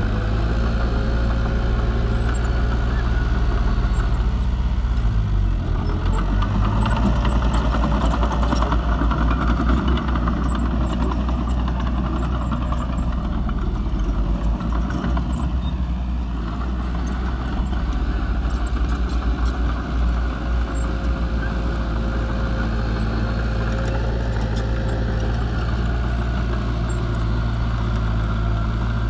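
Heavy diesel engines of a small crawler bulldozer and dump trucks running steadily. The engine note dips and recovers briefly several seconds in.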